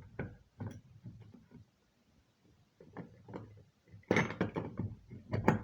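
Fire alarm pull station being reset with a hex key: a scattered series of small plastic and metal clicks and knocks, busiest about four seconds in.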